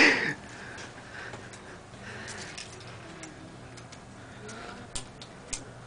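Scattered light clicks and small taps of metal piercing instruments and sterile packets being handled and set down on a paper-towel-covered tray, after a brief loud sound at the very start.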